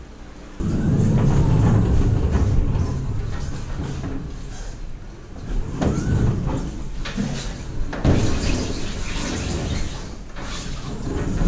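An electric pallet truck loaded with a stack of plastic pallets drives over a metal dock plate and a checker-plate trailer floor. The wheels set up a loud rattling rumble, with the pallets clattering on the forks. The rumble starts suddenly about half a second in and surges again a few times. A thin steady high whine runs underneath it.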